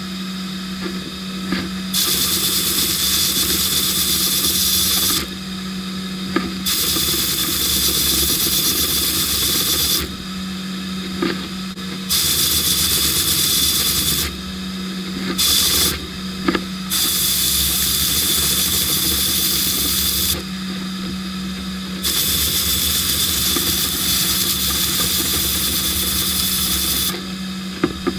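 Sandblasting gun in a blast cabinet spraying abrasive at a brass clock-winding key. It comes in about six on-off bursts of loud hiss, one to five seconds each, with a steady low hum between bursts.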